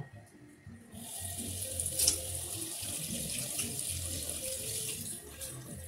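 Water running from a tap into a sink, a steady hiss that starts about a second in.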